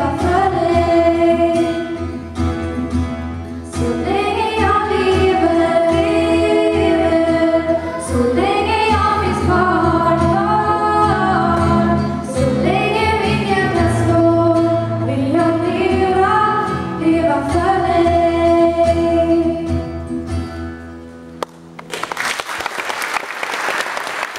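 Two girls singing a duet into microphones over an instrumental accompaniment, in a reverberant church. The song ends about 21 seconds in and applause follows.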